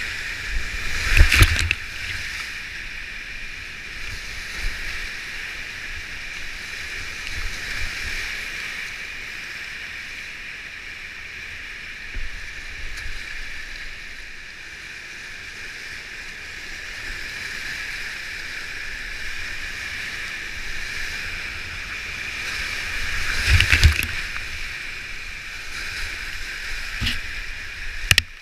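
Rushing whitewater of a steep creek in flood, heard from a kayak running the rapids, with loud splashing surges about a second in and again near the end as the boat plunges through drops.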